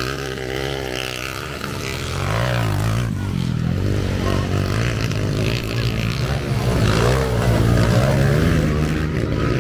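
Motocross dirt bike engines revving up and down as the bikes race around the dirt track. One bike passes close about eight seconds in, the loudest moment.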